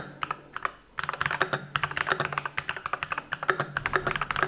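Glorious GMMK Pro custom mechanical keyboard being typed on fast, a dense run of key clicks with a brief pause shortly after the start.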